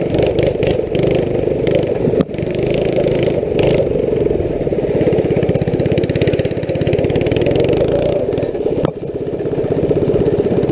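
Go-kart's small engine with an aftermarket exhaust running loud and steady as the kart is driven, with rapid even firing pulses. The sound drops off briefly twice, about two seconds in and again near the end, as the throttle is eased.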